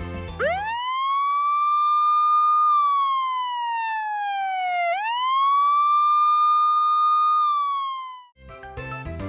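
Siren sound effect played from a push-button children's sound book: a wailing siren that sweeps up, holds, and slides slowly down, twice over, then stops. Music plays briefly before it and starts again just after it ends.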